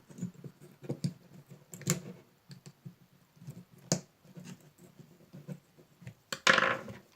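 Irregular small clicks and taps of hands and a tool prying at a dismantled lantern-battery cell. There is a louder half-second rasp about six seconds in.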